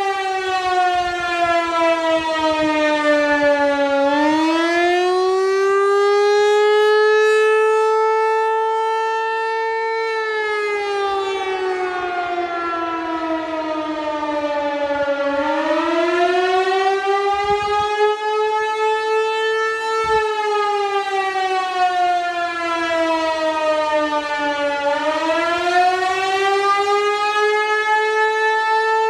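Outdoor tornado warning siren sounding its attack signal: a loud, slow wail that falls and rises in pitch about every ten seconds.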